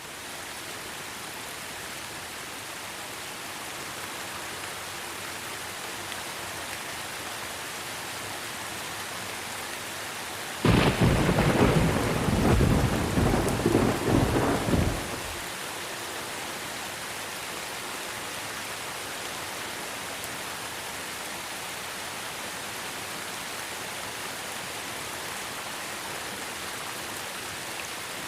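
Steady rain hiss, with a loud thunderclap that starts suddenly about ten seconds in and rumbles for some five seconds before fading back into the rain.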